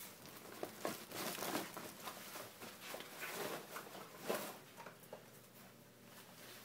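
A dachshund nosing and snuffling about the floor: irregular rustling and crinkling with soft clicks, busiest in the first four seconds or so, then dying down.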